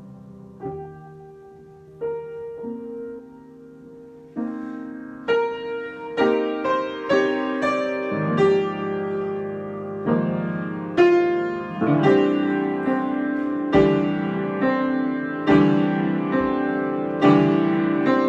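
Solo piano improvisation. It opens with a few sparse, softly ringing chords, then grows busier and louder from about four seconds in, with a steady run of struck chords and notes.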